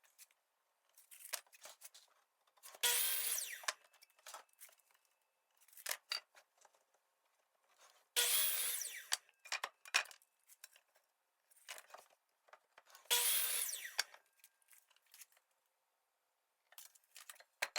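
Power chop saw cutting through a cedar 2x4, three short cuts about five seconds apart, each starting loud and fading as the blade finishes, with light knocks of the board being shifted between cuts.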